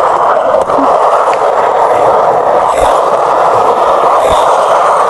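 Skateboard rolling across concrete on bare Hello steel bearings with no wheels fitted, giving a loud, steady, grinding rumble.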